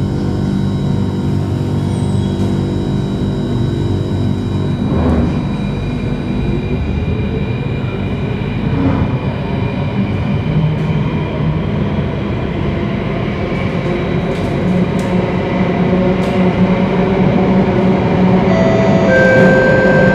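Inside a Circle Line MRT train pulling out of an underground station: a steady hum at standstill, a brief knock about five seconds in, then the traction motors whine in rising tones and the running noise grows louder as the train speeds up into the tunnel.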